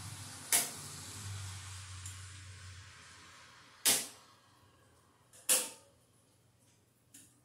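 Circuit breakers in an electrical panel being switched one after another: three sharp snapping clicks, then a fainter one near the end. A low hum underneath dies away about three seconds in.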